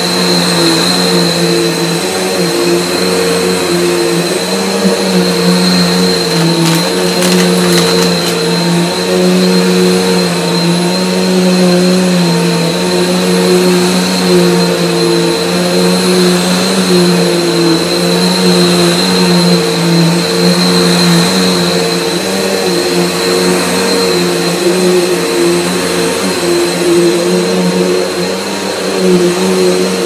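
Bernina 6100 upright vacuum cleaner running steadily on carpet, its motor giving a high, steady whine over a lower hum as it is pushed back and forth, with the brush roll sweeping the pile.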